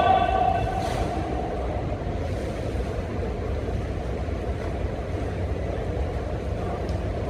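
A short, high-pitched shout at the very start, then a steady low rumble of room noise with no distinct impacts.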